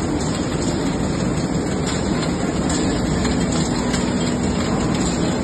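Steady mechanical din of a rice bagging plant's inclined truck-loading slat conveyor running with jute sacks of rice, with a constant hum underneath.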